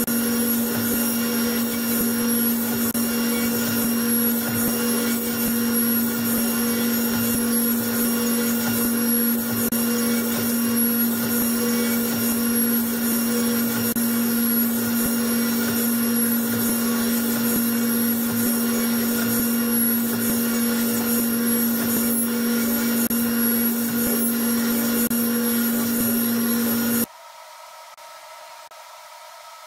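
Grizzly table saw running steadily while boards are crosscut on a sled, a constant motor hum under the whine of the spinning blade. The sound cuts off abruptly near the end, leaving a quieter steady hiss.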